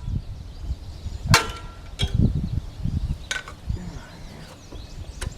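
Lawn tractor engine being cranked by its starter and trying to fire, an uneven low churning broken by several sharp cracks.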